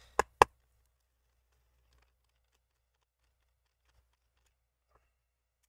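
Two sharp clicks of a Phillips screwdriver against a laptop battery's retaining screw in the first half second, then near silence while the screw is turned out.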